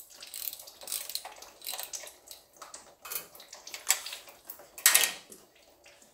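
Irregular light metallic clicks and clinks as a ratchet and hand work at the steel oil pan of a Corvette C3 automatic transmission, which is being loosened to drain the fluid. There is a louder clatter about five seconds in.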